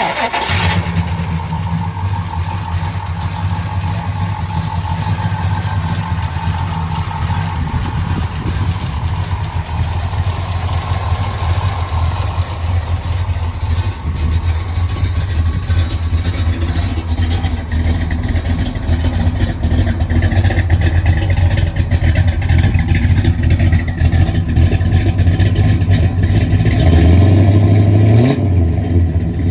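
1968 Pontiac GTO's V8 engine running at a steady pace, then revving up near the end, dipping briefly and climbing again.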